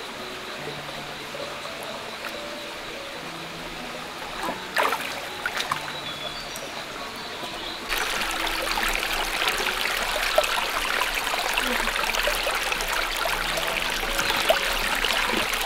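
Stream water trickling and flowing over rocks, with a few light knocks about five seconds in. The water grows suddenly louder about eight seconds in.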